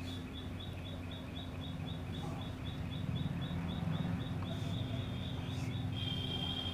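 Chalk scratching on a blackboard as lines are drawn, over a steady background of short, high chirps about three a second and a low hum.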